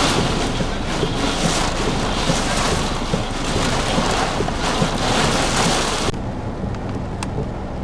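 Heavy wind-driven rain lashing a parked vehicle in surging gusts. It cuts off abruptly about six seconds in, leaving a quieter, steady hum.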